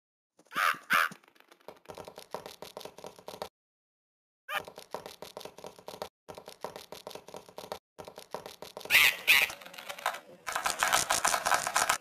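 Cartoon birds squawking and cawing in rapid repeated runs, with two loud calls about a second in, two more around nine seconds, and a dense run of squawks near the end.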